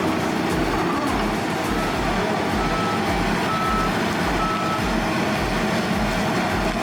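John Deere 948L-2 skidder's 9.0-litre diesel engine running steadily, with short high-pitched beeps now and then.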